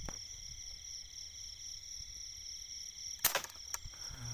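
Night insects trilling steadily in high, even tones, with a single sharp air gun shot about three seconds in and a small click just after. A low thump right at the start.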